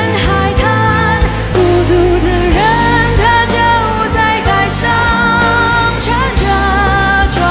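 Pop song playing: a gliding melody over sustained low bass notes.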